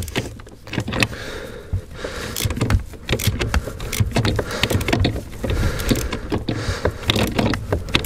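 A hand tool working a stubborn self-locking nut off the accelerator pedal mount under a Ford C-Max dash. It makes a run of irregular clicks and knocks over rustling.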